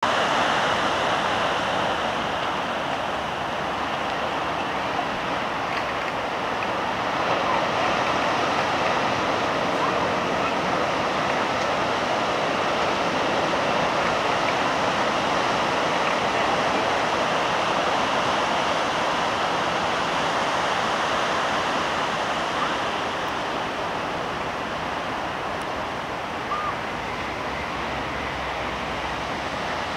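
Ocean surf breaking and whitewater washing in, a steady rushing noise that keeps an even level throughout.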